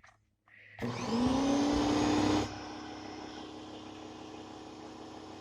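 Ryobi 1600 PSI electric pressure washer starting up about a second in with a rising whine that settles into a steady hum and spray hiss, spraying with the nozzle tip removed. A couple of seconds later the sound drops noticeably in level but the motor keeps running.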